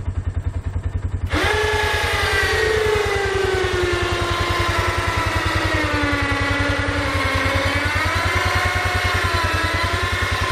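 A 12 V electric ATV winch kicks on about a second in and whines steadily under load as it winches the side-by-side up loose gravel. Its pitch sags a little, then wavers as the load changes. An engine idles with a low, regular pulse underneath.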